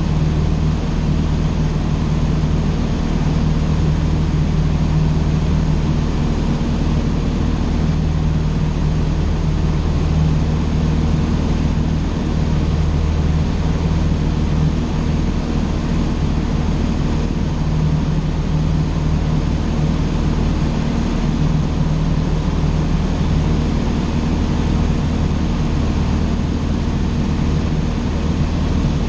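Cessna 150's four-cylinder Continental O-200 engine and propeller running steadily in flight, a constant low drone with no change in pitch.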